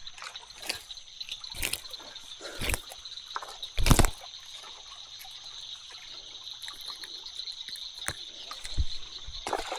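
Creek water trickling, with several short sharp sounds over it, the loudest about four seconds in, and a steady high whine throughout.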